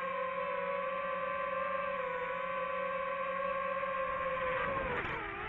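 DJI FPV drone's motors and propellers whining steadily at an even pitch; about four and a half seconds in, the pitch wavers and falls as the motors slow.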